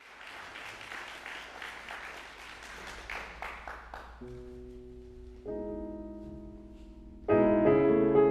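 Audience applause dying away, then a Steinway grand piano comes in with quiet sustained chords about four and five and a half seconds in, and a louder chord near the end.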